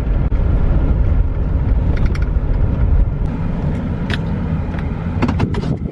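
Vehicle driving, heard from inside the cabin: a steady low road-and-engine rumble that eases off a little in the second half, with a few sharp clicks near the end.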